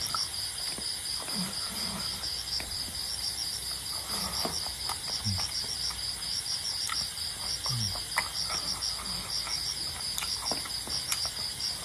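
Crickets chirping steadily in the background, an even, pulsing high chirp. Over it come scattered small clicks and smacks of a man eating curry and rice with his fingers.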